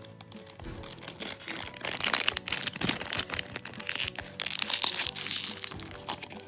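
Plastic toy wrapping crinkling and crackling as it is handled and pulled open, in dense irregular bursts that are loudest about two seconds in and again near five seconds.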